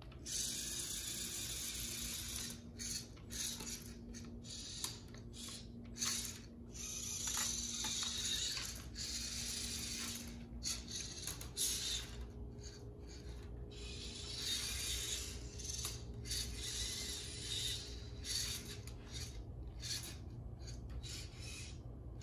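VEX IQ robot's small electric motors and plastic gears whirring as it drives and raises its lift arm, starting and stopping many times with brief pauses between movements.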